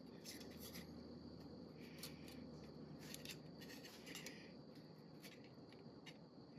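Faint, scattered light ticks and scrapes of a steel piston ring being handled into a cylinder bore and pushed down by hand, over a low steady background hum.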